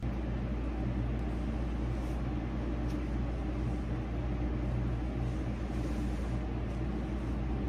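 Wall-mounted split air conditioner running: a steady low hum under an even hiss.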